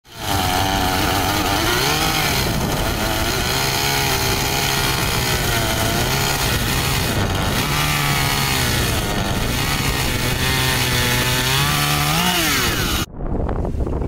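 Two-stroke gasoline chainsaw running at high revs while cutting through a fallen tree limb, its pitch dipping and recovering over and over as the chain bites into the wood. It revs up briefly near the end and then cuts off suddenly.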